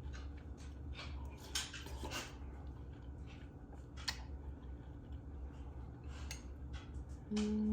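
Close-up eating sounds: crisp crunching and chewing of fresh vegetables with scattered clicks of cutlery on a bowl, over a steady low hum. Near the end comes a short, louder low hum that dips in pitch as it stops.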